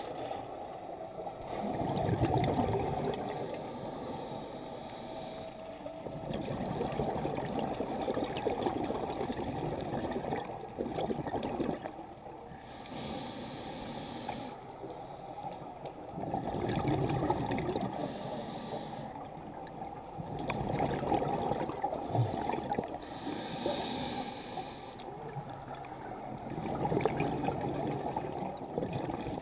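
Scuba divers breathing through their regulators underwater: rough bubbling bursts of exhaled air every few seconds, alternating with the hiss of the regulator on each inhalation, all muffled through the camera housing.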